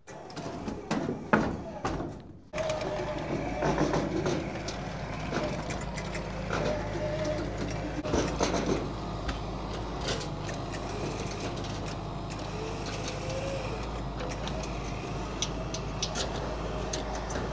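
A few loud metallic knocks, then a steady low engine drone with scattered clicks and knocks over it.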